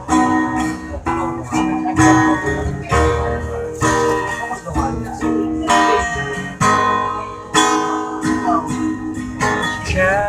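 Guitar strummed in a steady rhythm of chords, roughly two strokes a second, with the notes ringing on between strokes.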